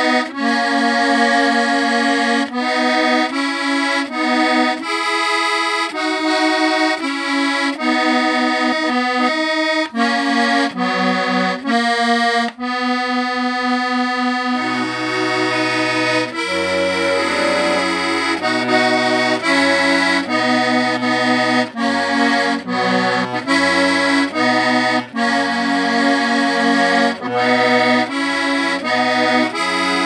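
Accordion playing a traditional-style tune in chords; low bass notes join in about halfway through.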